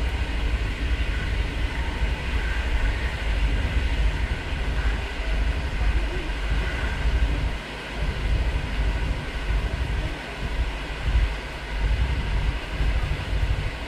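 Steady low rumble of a moving PKP Intercity passenger train running along the track.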